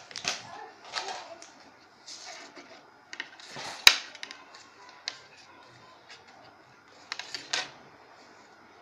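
A sheet of printer paper being folded and creased by hand on a wooden tabletop: intermittent rustles and crinkles, with a sharp click about four seconds in as the loudest sound, and another short cluster of rustles near the end.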